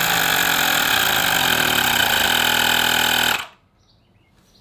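Fanttik X8 cordless tire inflator's compressor running loudly and steadily as it pumps up a motorcycle's front tire. It shuts off suddenly about three and a half seconds in, when the tire reaches its set pressure of 1.9 bar.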